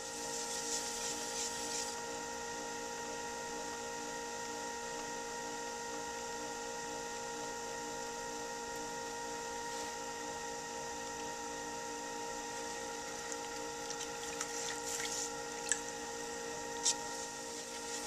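Electric pottery wheel's motor running with a steady hum made of several fixed tones, while wet hands on the spinning clay give brief swishes near the start and again near the end. Two sharp ticks come in the last couple of seconds.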